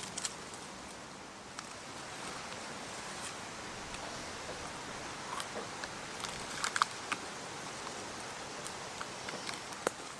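A trail camera being strapped to a dead tree stump by hand: rustling of strap and undergrowth with scattered sharp clicks, a few together about two-thirds of the way through and one near the end, over a steady woodland background hiss.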